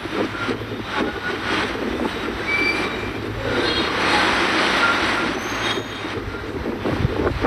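Jet airliner engines running: a steady rushing noise with a low hum underneath and faint high whines.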